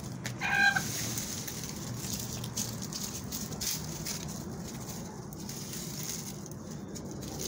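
Chickens scratching and pecking through dry fallen leaves, a scattered rustling crackle, with one short chicken call about half a second in.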